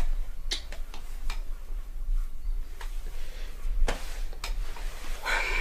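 Scattered soft clicks and taps at irregular intervals over a steady low hum, with a short rustle near the end.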